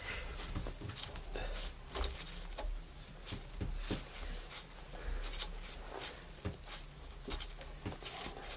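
Irregular small clicks, taps and scrapes of a hand tool turning the last screws on the aluminium valve body of a Mercedes 722.6 automatic transmission.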